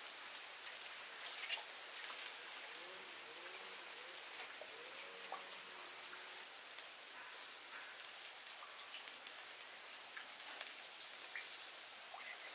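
Steady rain falling, with scattered louder drips.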